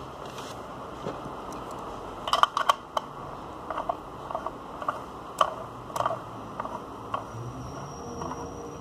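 A run of small sharp clicks and taps from the metal parts of a Steam Crave Aromamizer RDTA being handled and turned in the fingers, loudest in a cluster about two and a half seconds in, then scattered until about seven seconds in.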